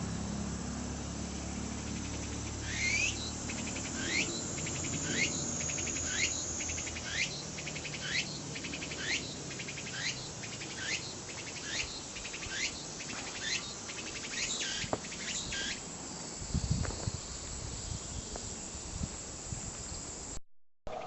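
Tsukutsukuboshi cicada (Meimuna opalifera) singing. A series of about a dozen rising calls, roughly one a second with rapid ticking between them, then trailing off into a softer buzz.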